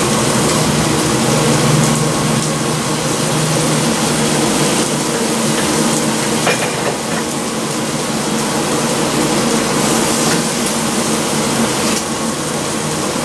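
Meat and vegetables sizzling steadily on a Stone-Ware electric grill, over the steady rush and hum of a fan, with a couple of light utensil clicks.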